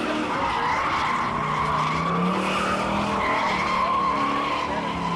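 A drift car's tyres squealing in one long unbroken slide, with the engine revving underneath.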